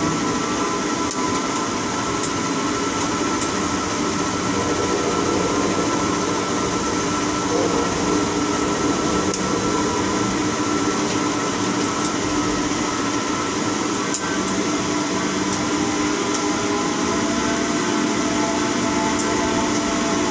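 Tower crane heard from inside its operator cab: a steady mechanical hum with a steady whine over it while the hoist lowers a concrete bucket, with a few faint ticks.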